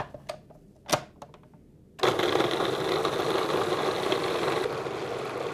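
A click about a second in, then a food processor's motor starts suddenly about two seconds in and runs steadily, blending avocado flesh and lime juice to a purée.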